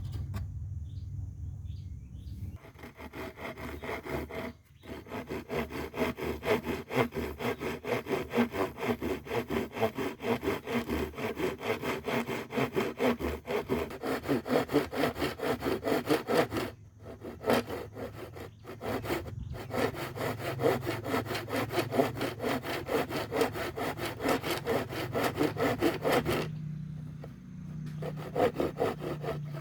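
Hand saw cutting wood in steady back-and-forth strokes that start a couple of seconds in and stop briefly a few times.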